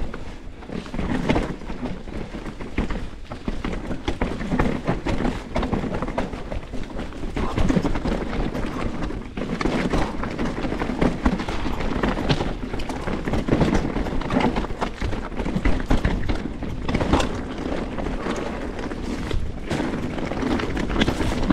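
Canyon Strive full-suspension mountain bike descending rough ground at speed: a continuous rattle and clatter with frequent sharp knocks over a steady low rumble.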